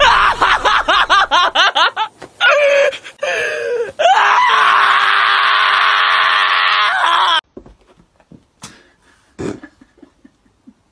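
Shiba Inu dog screaming in protest while held for a nail trim. A run of rapid wavering yelps and shrieks turns into one long unbroken scream that cuts off suddenly about seven seconds in.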